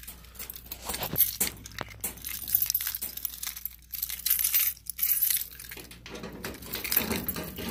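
A bunch of keys on a lanyard jangling and clicking as a key is worked into the cabinet door lock of a Keymaster arcade prize machine, in short irregular rattles.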